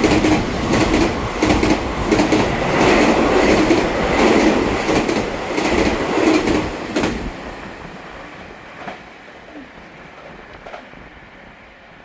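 Taiwan Railway EMU3000-series Tze-Chiang express train passing at speed, its wheels clacking in rhythmic groups over the rail joints. The clacks fade away about seven seconds in as the train goes by.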